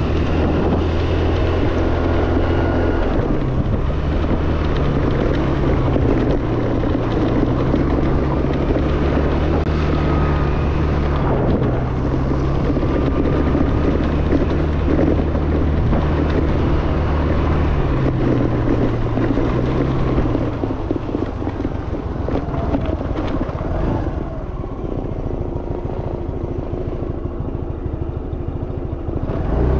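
Yamaha Fascino scooter's engine running while being ridden, its note shifting up and down with the throttle, with wind noise on the microphone. It gets quieter from about twenty seconds in as the scooter eases off.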